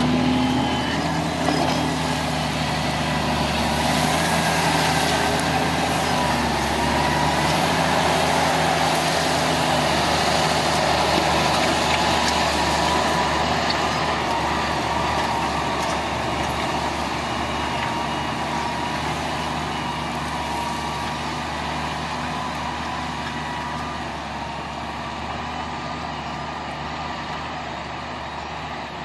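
Valtra 191 tractor's diesel engine working steadily under load while pulling a reversible mounted plough, the engine note holding even and gradually growing quieter over the second half as the tractor draws away.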